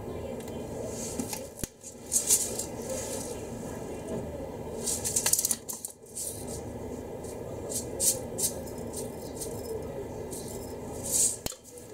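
Seasoning containers being handled over a glass mixing bowl: several short bursts of rustling and rattling, as when granules are shaken from a small jar, over a steady low background noise.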